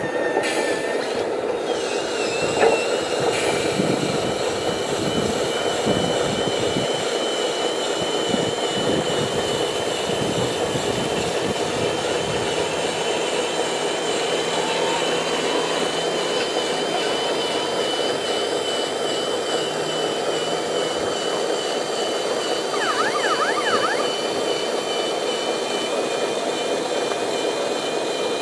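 Hydraulic pump of a radio-controlled tipper trailer whining steadily with a slight warble as it raises the sand-loaded tipper body, starting about two seconds in and dropping away near the end, over a steady background hum.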